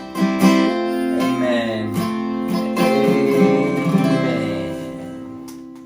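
Acoustic guitar strumming chords, the last chord ringing on and fading away near the end.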